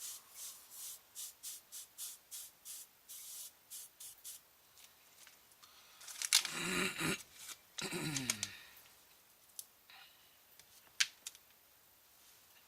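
Rhythmic scraping or rubbing strokes, about two to three a second, then a louder rustle about six seconds in and a few light clicks.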